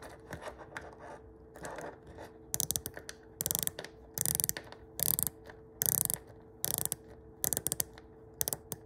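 Blue unidirectional dive bezel of an Oris Aquis watch turned by hand, ratcheting in short runs of crisp clicks, one run about every second.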